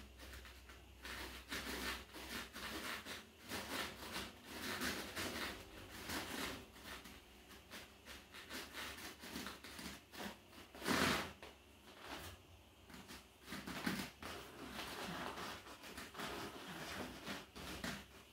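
Irregular rustling and scuffing from a person exercising in a lunge with one bare foot on an inflatable balance disc, with one sharper, louder sound about eleven seconds in.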